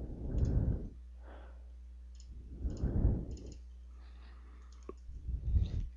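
Computer mouse clicks while working a CAD program, over a steady low hum from the recording, with three short muffled rushes of low noise about two and a half seconds apart.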